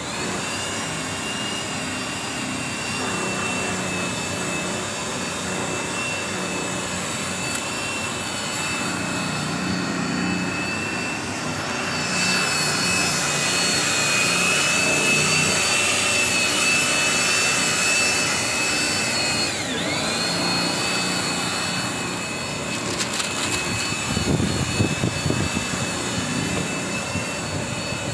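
Steady machine running noise with a high whine, its pitch dipping briefly about two-thirds of the way through, with irregular knocking and rattling near the end.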